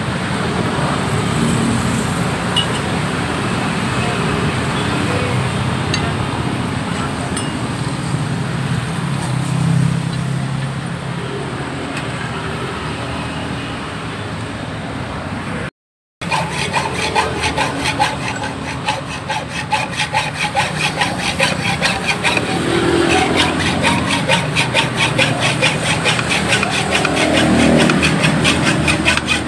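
Steady road traffic noise, then after a cut a hand saw rasping back and forth on metal in quick, even strokes, cutting exhaust pipe stock for a motorbike header pipe.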